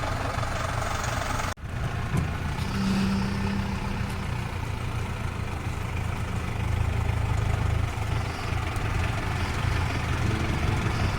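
A motor vehicle's engine running steadily, with the sound cutting out abruptly for a split second about one and a half seconds in.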